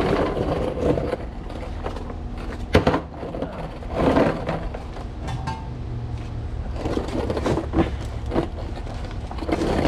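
Irregular scraping and knocking of rear diffuser panels and hardware being handled and fitted to the underside of a car, with a sharp knock about three seconds in, over a steady low hum.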